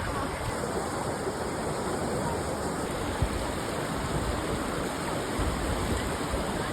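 A steady rushing noise, with one brief knock about three seconds in.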